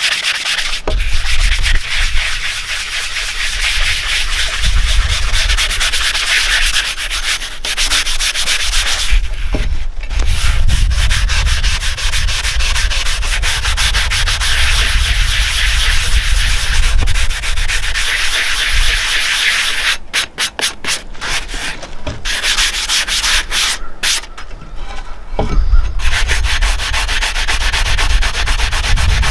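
Sanding sponge scrubbed rapidly back and forth over the steel blade and head of an old field hoe, knocking off active surface rust. A loud, steady scratchy rubbing that breaks off briefly twice in the last third.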